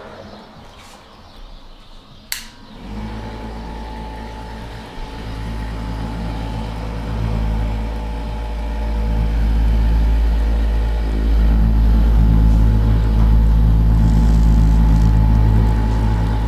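A handheld electric massager clicks on about two seconds in, then runs with a steady low motor hum that grows louder over the next several seconds, working on the neck and shoulders.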